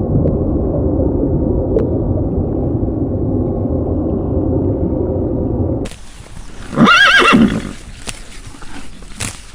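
A horse whinnying once, a loud, wavering, quavering call about seven seconds in. Before it, for about six seconds, a steady muffled low noise, which stops abruptly.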